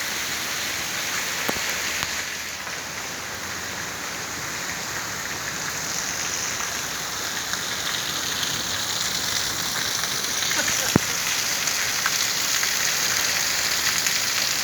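Heavy rain falling steadily, a dense hiss with scattered sharp drop taps; one louder tap about 11 seconds in.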